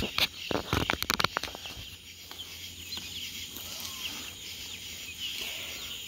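A brood of young poultry in a heat-lamp brooder peeping softly in many short, high cheeps. A burst of clicks and rustles in the first second or so.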